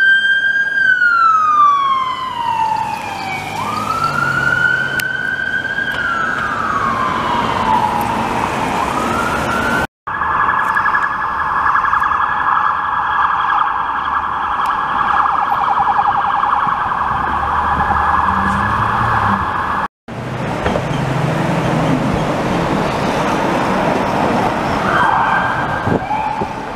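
Police car sirens. First a wail rising and falling slowly, then after an abrupt cut a fast, rapidly warbling siren for about ten seconds, then traffic noise with a short rising siren sound near the end.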